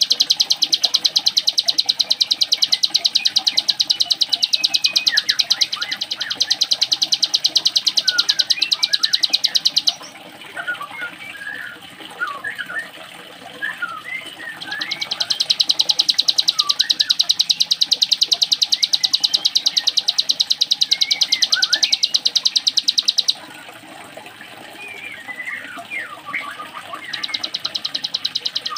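Ciblek gunung (a mountain prinia) singing a very fast, buzzing 'ngebren' trill in the sewing-machine style. The trill runs for about ten seconds, breaks off, comes back for about nine seconds, breaks off again and returns briefly near the end, with short chirps in the pauses.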